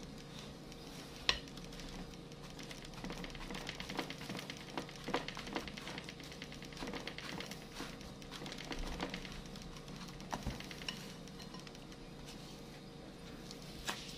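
A spoon stirring and scraping a thick, damp graham-cracker crumb mixture in a glass bowl, with irregular light knocks of the spoon against the glass.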